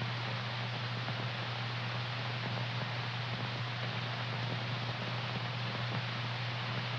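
Steady hiss with a constant low hum, the background noise of an early-1930s film's optical soundtrack, with nothing else heard.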